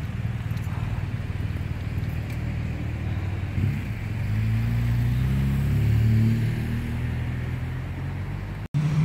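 Low engine rumble of a motor vehicle, swelling about halfway through as it draws nearer and then easing off. The sound cuts out for an instant near the end.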